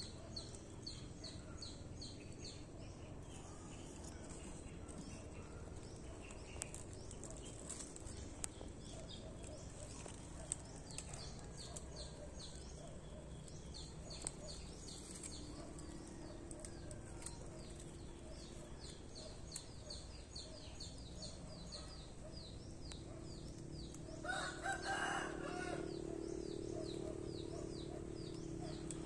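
A rooster crows once near the end, the loudest sound here, over a steady run of high, rapid chirping.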